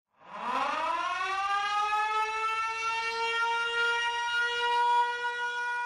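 A siren winding up from a low pitch to a steady high wail, then holding that wail.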